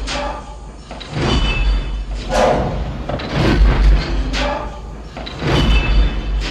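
Star Wars AT-AT walker walking sound effect: a repeating mechanical stride, each step a hissing, whining machine movement with a heavy clank, about once a second, over a steady low rumble.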